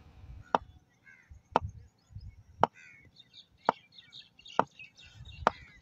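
A sharp knock repeated evenly about once a second, six times.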